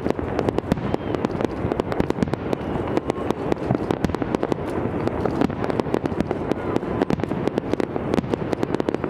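Fireworks display: aerial shells bursting in a dense, unbroken string of bangs and crackles, many reports a second, with no let-up.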